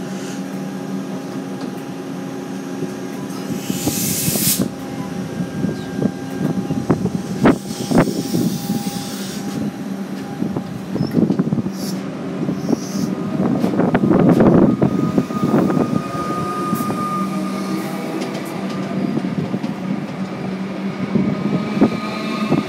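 Electric suburban train standing at a platform with a steady hum. A short burst of air hiss comes about four seconds in, then clanks and rattles through the middle. Near the end a rising electric motor whine sets in as the train starts to pull away.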